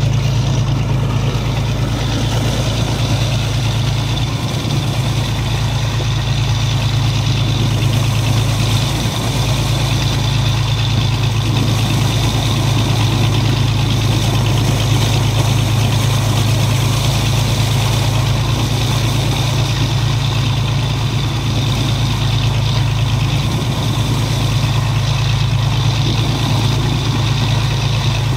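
An engine running steadily with a constant low drone, under the gushing of thick mud slurry pouring out of a suction dredge's discharge hose.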